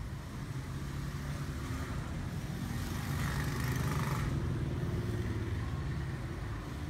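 Road traffic: a steady low engine hum, with a vehicle passing close that swells about two to three seconds in and then fades.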